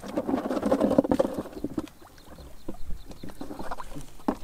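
Wet mud and water splashing and squelching, dense and busy for about the first two seconds, then thinning to scattered small splashes and clicks.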